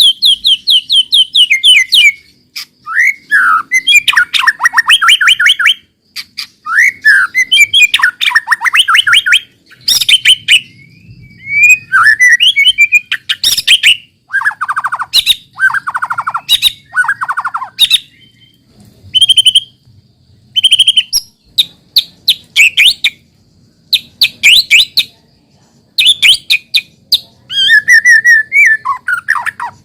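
White-rumped shama singing loudly, in a run of varied phrases of rapid trills and sweeping whistles broken by short pauses.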